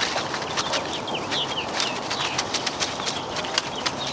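Birds chirping in short falling calls, over a steady run of irregular sharp ticks.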